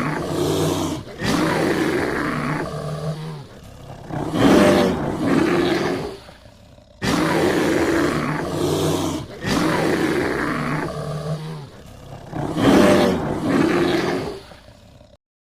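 Bear growling and roaring in a fight: a run of rough, throaty roars, each one to two seconds long with short pauses between them. The same sequence of roars seems to start over about halfway through.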